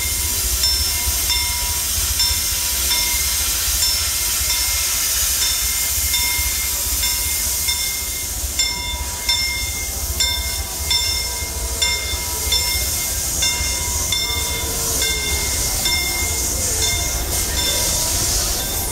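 Steam train of the Disneyland Railroad, locomotive Fred Gurley No. 3, running past with a steady hiss and low rumble. A short ringing strike repeats evenly, about three every two seconds.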